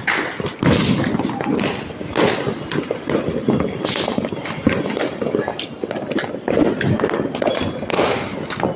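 Firecrackers going off all around, many sharp bangs and pops at irregular intervals over a steady background of voices.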